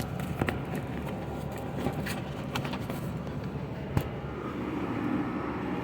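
Scattered light clicks and knocks of hands working a car headliner into place, with one sharper knock about four seconds in, over a steady low rumble that swells near the end.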